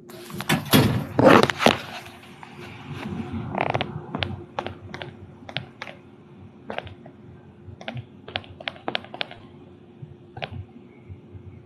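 Rustling handling noise in the first two seconds, then a string of irregular light clicks or taps, about one or two a second, over a faint steady hum: a phone being handled and tapped.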